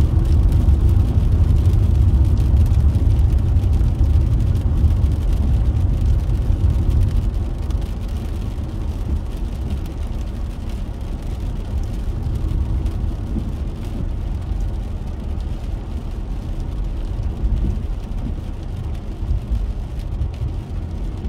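A steady low rumble of road and engine noise inside a car's cabin while driving on a wet road, a little louder in the first seven seconds or so.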